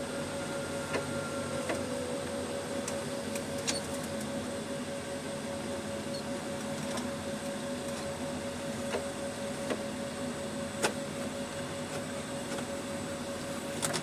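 Tractor engine running steadily under way, heard from inside the cab, with a steady whine over the drone and scattered sharp clicks and knocks, the loudest about eleven seconds in.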